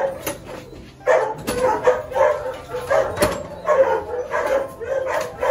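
Several retired racing greyhounds barking over one another in their kennel pens, a continuous chorus of short barks. There are two sharp clicks, about one and a half and three seconds in.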